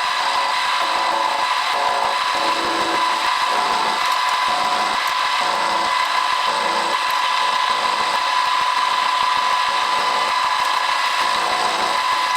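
Milling machine running steadily with a constant motor whine while cutting a 55-degree angle on the end of a small bracket piece; it cuts off suddenly at the end.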